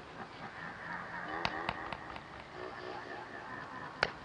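Volleyball rally on grass: players' shouted calls, a couple of sharp hand contacts on the ball, and one loud smack about four seconds in as a player spikes it.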